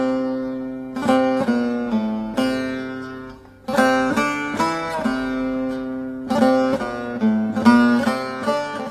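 Instrumental music on a solo plucked string instrument: a slow melody played in short runs of notes, each group left to ring and fade before the next.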